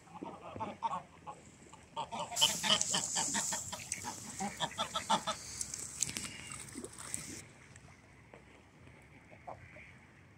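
A group of domestic ducks calling, a fast run of short repeated calls that grows louder for a few seconds, then dies away about halfway through to a few faint calls.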